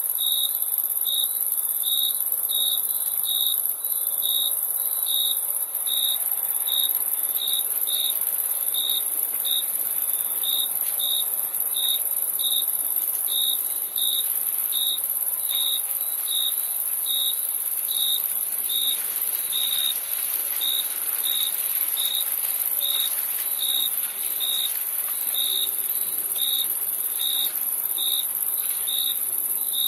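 Crickets chirping at night: one cricket gives short, evenly spaced chirps about one and a half times a second over a steady, continuous, higher-pitched insect trill.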